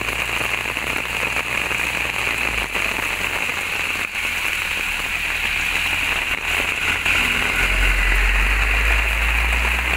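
Heavy rain falling steadily. A low rumble grows louder about three-quarters of the way through.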